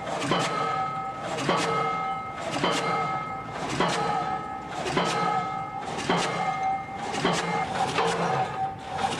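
Pile hammer driving a pile, striking about once a second with sharp doubled clanks, and a ringing tone holding between blows.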